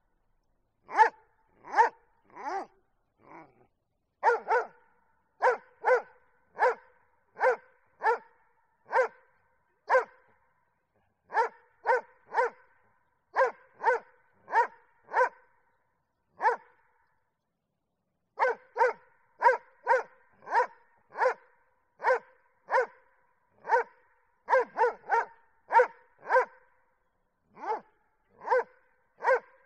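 A dog barking over and over in short single barks, about one or two a second, with a brief pause about two-thirds of the way through.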